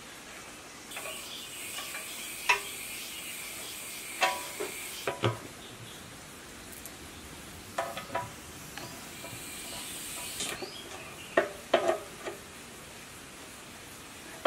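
Scattered sharp clanks and knocks as the red water tank is set down on a single-cylinder 1115 diesel engine and fitted in place, with a T-handle socket wrench turning on its mounting stud near the end.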